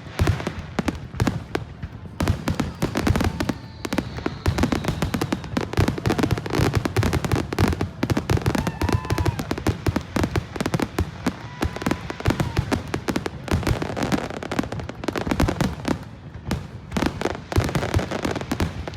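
Fireworks going off in a dense, continuous crackle of rapid pops, with a few short whistling tones now and then.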